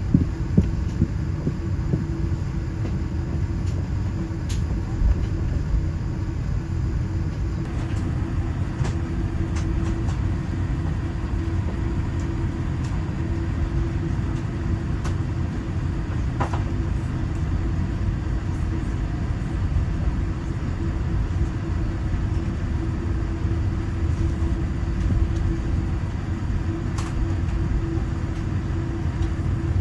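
Steady low rumble with a constant hum, heard inside a Boeing 787-9 cabin, with a few faint clicks.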